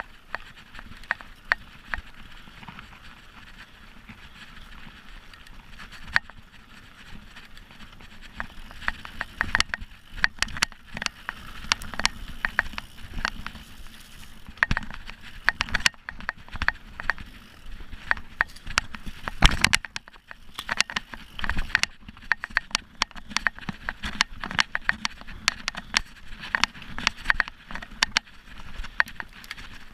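Mountain bike ridden over a dirt trail: a steady rush of tyres on dirt, with rattling clacks and knocks as the bike rolls over roots and bumps. The clatter grows busier and louder about a quarter of the way in, and one heavy knock stands out about two-thirds of the way through.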